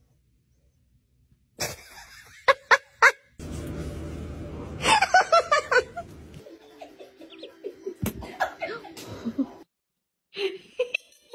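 A person laughing in a run of short bursts about five seconds in, with sharp clicks and knocks before it.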